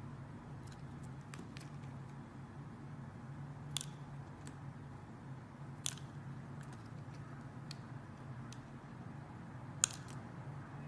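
Knife cutting into a bar of dry soap: scattered crisp clicks and crackles, with three louder snaps spread through, over a low steady hum.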